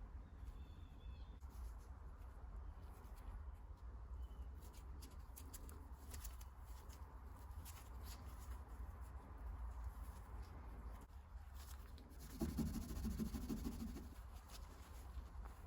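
Faint hand work on a small brass tool: scattered light clicks and handling noises, with a louder rubbing stretch shortly before the end, over a low steady hum.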